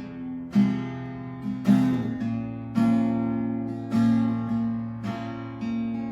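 Acoustic guitar strumming chords, one strummed chord about every second, each left to ring.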